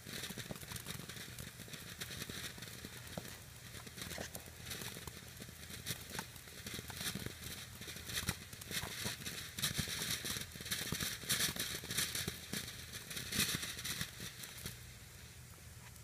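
A fountain firework spraying sparks with a steady hiss and dense crackling. The crackle grows busier and louder over the last several seconds, then stops about fifteen seconds in as the fountain burns out.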